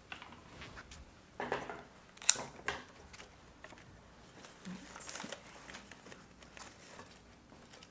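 Soft rustling of leaves and flower stems as cut roses are handled and pushed into a flower arrangement, with a few short sharp clicks; the loudest click comes a little over two seconds in.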